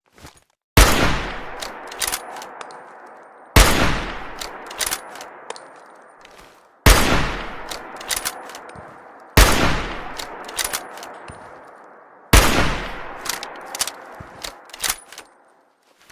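Hunting rifle firing five single shots about three seconds apart, each with a long fading echo. A few sharp metallic clicks come between the shots as the action is worked.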